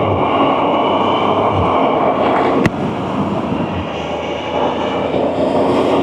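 Can-Am Spyder RT three-wheeled motorcycle riding along, its engine running under steady wind and road noise. There is one sharp click about two and a half seconds in, after which the sound drops a little.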